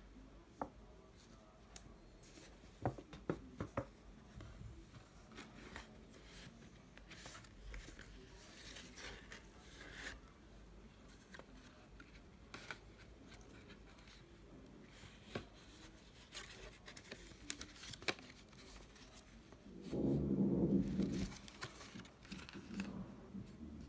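Paper and cardboard being handled: the crinkle and rustle of a paper shopping bag, a folded paper envelope and a cardboard gift box, with scattered sharp clicks and taps, several close together a few seconds in. Near the end a louder, low-pitched sound lasts about a second and a half.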